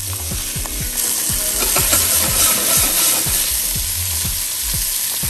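Chicken thighs sizzling in hot oil in a casserole pot as they are turned over with tongs. The sizzle swells a little from about a second in.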